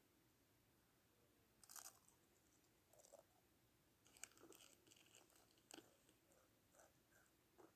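Faint crunchy chewing of food: irregular crisp crunches and clicks, starting a little under two seconds in and coming more often from about four seconds.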